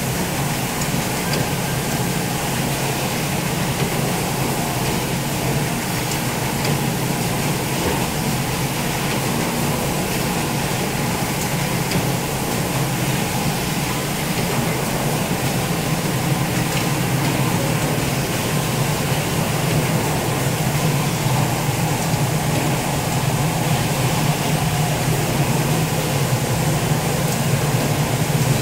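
Automatic syringe assembling and thermoforming blister packing machinery running: a steady mechanical hum with a low drone, and faint ticks of the mechanisms here and there.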